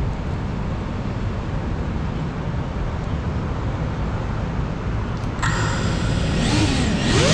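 A steady outdoor background rumble; about five seconds in, the FPV quadcopter's electric motors start with a whine of several high tones, which sweep upward in pitch near the end as the motors throttle up for takeoff.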